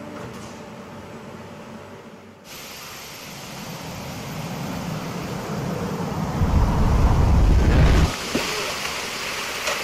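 Fresh concrete rushing through a concrete-pump delivery pipe and gushing out of its open end onto the floor deck, in a rising rush with a heavy low rumbling surge that peaks and drops off near the end. The first two seconds hold only a faint steady hiss.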